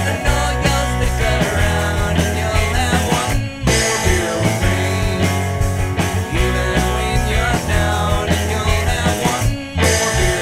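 Rock song played by a band, with a strong steady bass. It breaks off for a moment twice, about three and a half seconds in and again near the end.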